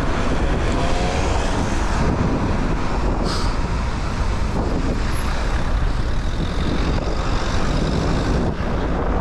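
Steady wind buffeting on an action camera's microphone while cycling, mixed with road traffic noise.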